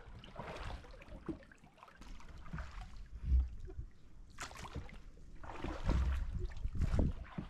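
Oars dipping and dripping as a small dinghy is rowed through calm water, with a few splashy strokes. A low thump about three and a half seconds in.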